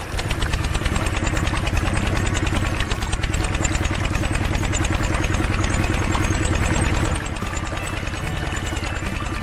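Small engine of a miniature water pump running steadily with a fast, even beat. It drops a little in level about seven seconds in.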